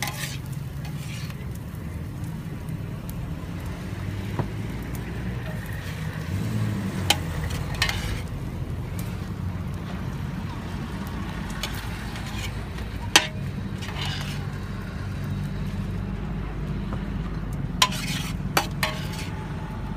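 Fried noodles sizzling in a large flat steel pan as two metal spatulas stir and toss them, with scattered sharp clanks of the spatulas striking the pan.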